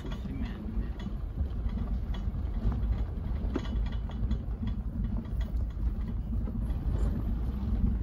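Vehicle engine running with a steady low rumble and light scattered rattles, heard from inside the car.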